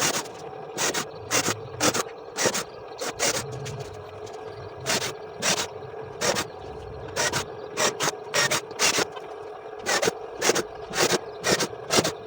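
Hand-tool strokes in a workshop: short, sharp, irregular strokes, about two a second, over a faint steady hum.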